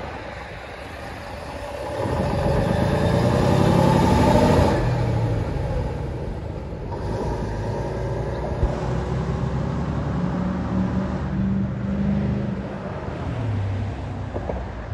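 A large motor vehicle's engine picks up about two seconds in and climbs in pitch, loudest around four seconds. It then drops back and runs on steadily.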